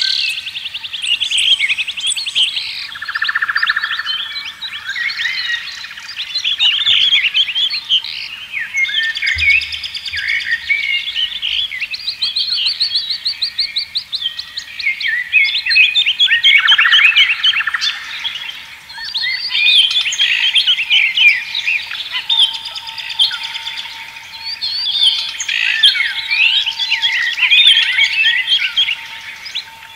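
Dense chorus of many songbirds chirping and trilling, with overlapping rapid calls throughout.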